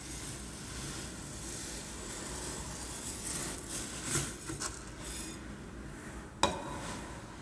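Uncooked rice sliding and rattling inside a container, tilted to imitate the wash of sea waves, swelling in the middle. A single sharp knock near the end.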